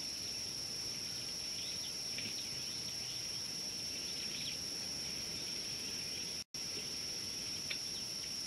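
Natural outdoor ambience: a steady, high insect drone with scattered faint bird chirps. The sound cuts out for a split second about six and a half seconds in.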